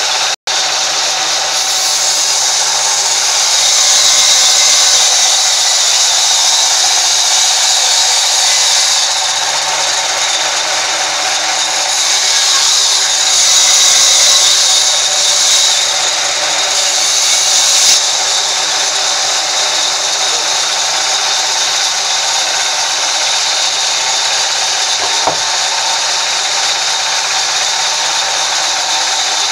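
Sawmill band saw running and cutting a log, a steady loud whining hiss. It swells louder twice, about four to nine seconds in and again around twelve to sixteen, and cuts out for an instant just after the start.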